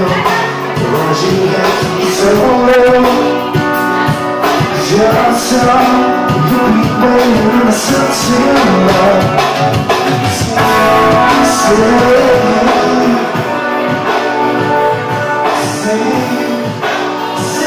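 A live band playing a song: guitars with a singer, heard in the room.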